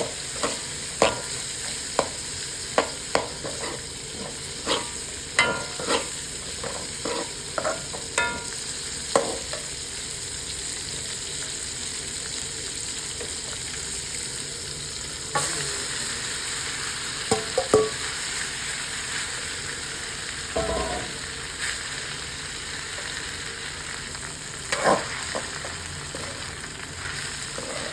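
Noodles frying in a pan with a steady sizzle, while a utensil stirs them, knocking against the pan many times in the first ten seconds and only now and then after that.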